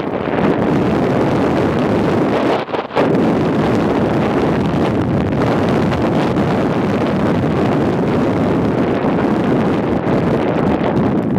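Wind rushing over the microphone of a camera riding on a mountain bike going downhill: a loud, steady rush with one brief dip about three seconds in.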